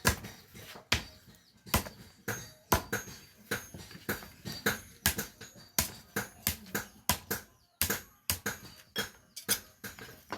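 Hammer blows on iron, about two a second at an uneven pace, each a sharp strike with a short metallic ring, as a twisted iron bar is hammered straight.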